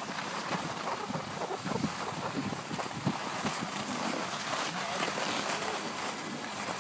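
Skis sliding and scraping over packed snow on a downhill run, a steady hiss with irregular scrapes, with wind on the microphone. Indistinct voices of other skiers are mixed in.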